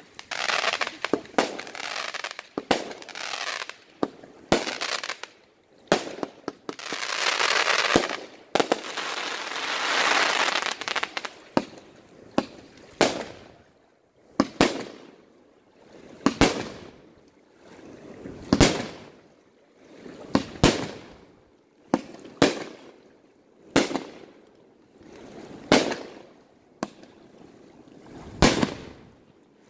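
Aerial fireworks going off: a dense run of rapid pops and crackling for about the first twelve seconds, with a long crackling rush in the middle of it, then single shells bursting with sharp bangs about every two seconds.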